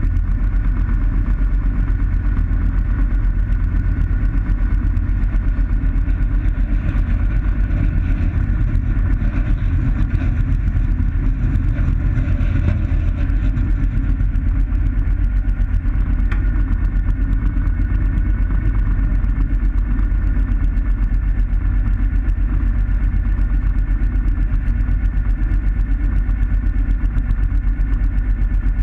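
Light aircraft's propeller engine running at low power while taxiing, a steady hum heard from inside the cockpit, growing a little louder for several seconds around the middle.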